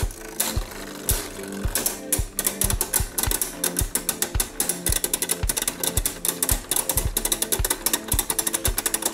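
Rapid, irregular clicking and clattering of two Beyblade Burst tops, Hazard Kerbeus and Hell Salamander, knocking against each other as they spin in a plastic stadium, over background music with a steady beat about twice a second.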